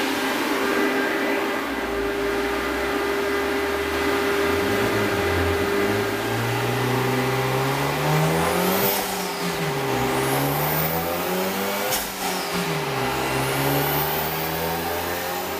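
Hyundai Genesis Coupe engine on a chassis dyno, running low at first, then revving up and down: the pitch climbs from about four seconds in, drops back and climbs again a few times. Under it runs the steady drone of a large cooling fan, and there is one sharp click near the end.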